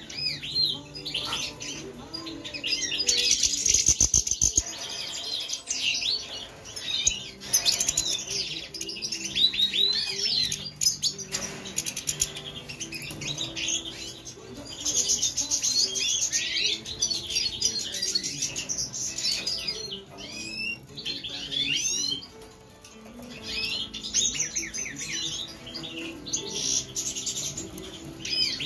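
Caged European goldfinches chirping and twittering in a busy run of quick rising and falling notes, with short pauses. A brief burst of rapid clicks comes about four seconds in.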